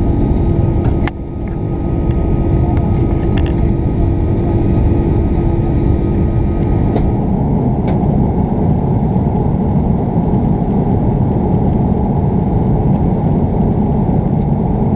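Steady roar inside the cabin of an Airbus A340-600 in flight, heard at a window seat over the wing: its Rolls-Royce Trent 500 engines and the rushing air. Steady tones ride on the rumble until about seven seconds in. The level drops briefly about a second in.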